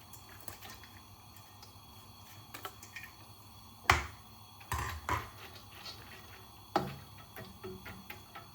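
Kitchen utensils knocking and clinking against a cooking pot: a few sharp knocks, the loudest about four seconds in and others around five and near seven seconds, with light ticks between.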